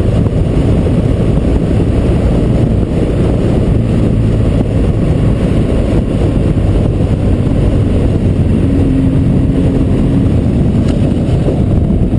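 BMW motorcycle riding at steady road speed: a continuous low rumble of engine and road noise, with heavy wind buffeting on the microphone. A brief faint tone joins in about nine seconds in.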